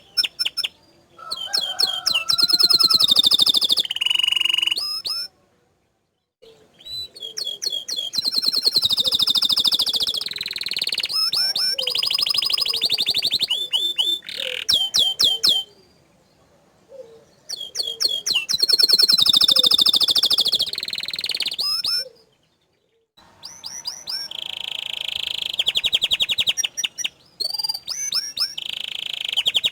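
Domestic canary in full song: long bouts of rapid rolling trills and high whistled notes, broken by three short pauses. It is a loud, energetic song of the kind played to provoke other canaries into singing.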